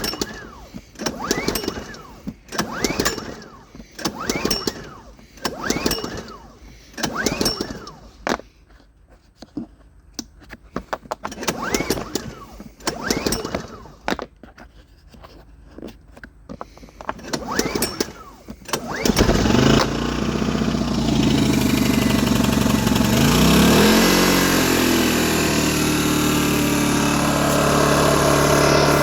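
Brand-new Polaris digital inverter generator being pull-started with the choke on: a long series of recoil starter pulls, with a short pause partway. It needs several pulls because fuel has to be drawn up by its fuel pump. About 19 seconds in, the engine catches and keeps running, its pitch dipping and then settling steady.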